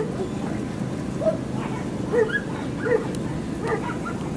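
A dog barking repeatedly in short, evenly spaced barks, a little under one a second.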